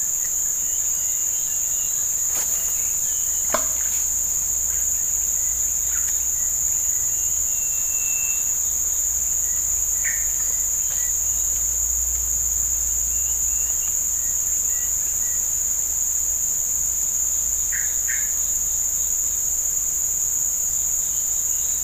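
A steady, high-pitched chorus of forest insects buzzing without a break, with a low rumble beneath it and a few short faint chirps.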